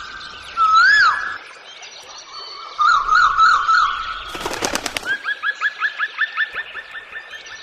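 A bird calling in a varied sequence. First come two loud swooping whistles, then a warbling trill. A burst of rapid clicks follows about four and a half seconds in, and then a fast run of short rising chirps, about five a second.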